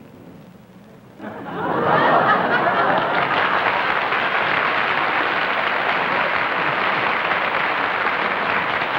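Studio audience breaking into laughter and applause about a second in, holding steady and easing off near the end.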